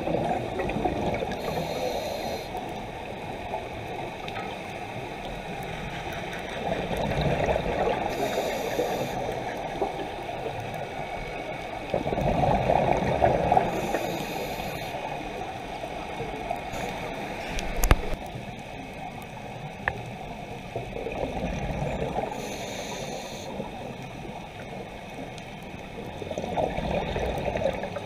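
Scuba breathing heard underwater through a camera housing: muffled rushes of exhaled regulator bubbles come back every several seconds, between quieter stretches with short bursts of hiss. A single sharp knock sounds about 18 seconds in.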